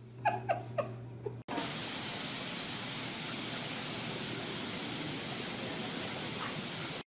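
Three short high squeaks, each falling in pitch, then an abrupt cut to a steady even hiss of water spraying over a bulldog.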